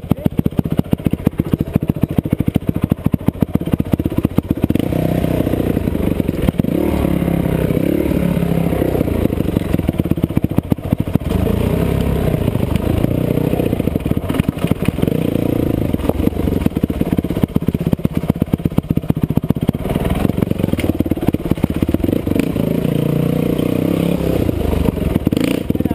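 Off-road motorcycle engine running at rising and falling revs on a rough downhill dirt trail, with continuous rattling and knocks as the bike bounces over ruts.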